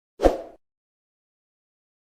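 A single short pop-like sound effect, a low thump with a bright edge that dies away within a third of a second.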